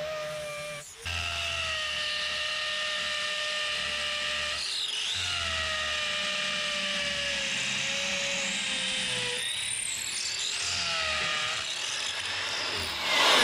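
Handheld power drill with a masonry bit boring an anchor hole into a concrete slab. The motor whine stops briefly about a second in, then runs steadily, its pitch sagging and recovering a few times as the bit bites.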